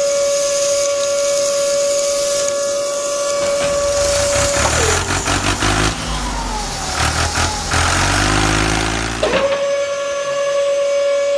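A small electric motor whining steadily at one pitch. About four and a half seconds in, the whine drops in pitch and low rumbling with rapid clicking takes over for about five seconds, then the steady whine comes back.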